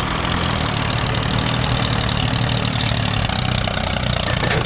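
Engine of a mini tractor running steadily, a low steady hum under a broad hiss.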